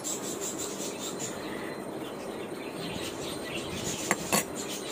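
Steady background hiss, with two short clicks about four seconds in.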